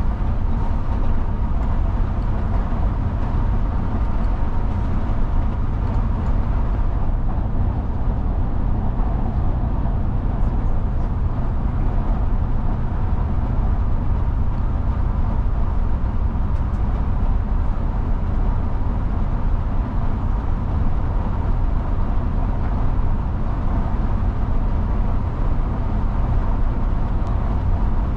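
Mercedes-Benz Travego coach cruising on the highway, heard from inside at the front: a steady low drone of engine and road rumble that stays even throughout.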